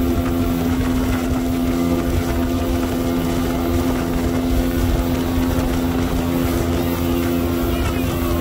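Johnson 225 outboard motor running at a steady cruising speed, its engine note holding one pitch, with water rushing past the hull and an uneven low rumble of wind on the microphone.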